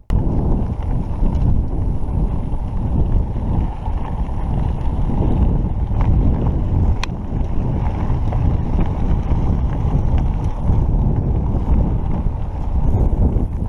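Wind buffeting an action camera's microphone on a moving mountain bike on a rough dirt road: a loud, uneven rumble with no tone in it. A single sharp click comes about seven seconds in.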